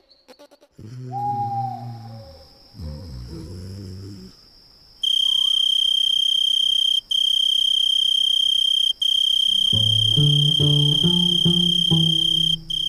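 Cricket trill: a loud, steady, high-pitched tone that starts about five seconds in and breaks off briefly twice. From about ten seconds a rhythmic melody of low notes plays under it. Before the trill there are a few short low sounds.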